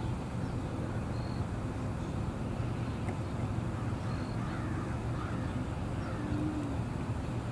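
A few faint bird calls, such as crow caws, over a steady low outdoor rumble.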